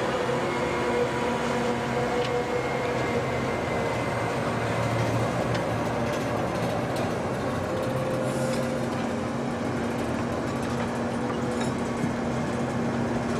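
Heavy marine construction equipment's engine running steadily, a constant mechanical drone with a steady hum.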